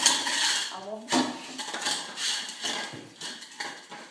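A dog eating greedily, licking and nosing at food dishes so that they clatter and scrape against each other and the floor again and again. The sound dies away near the end.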